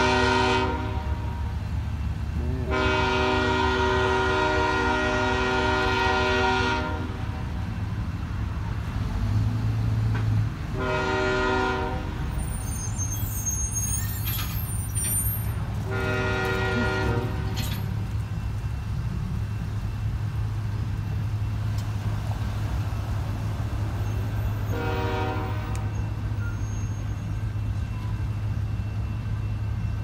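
Diesel locomotive air horn on a Union Pacific GE Evolution-series locomotive, a chord sounding the long-long-short-long grade-crossing signal, then one more short blast near the end. A steady low rumble from the passing train runs underneath.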